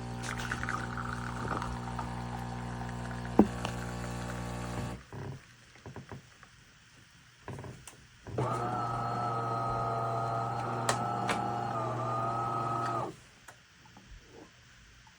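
De'Longhi Magnifica Start espresso machine running with a steady mechanical hum. The hum stops about five seconds in, a few light clicks follow, and then a second, slightly higher hum runs for about four and a half seconds before cutting off.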